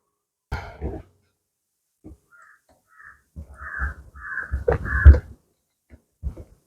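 A bird calling about five times in quick, even succession, over knocks and clatter of tools and the planer being handled; the loudest knock comes about five seconds in.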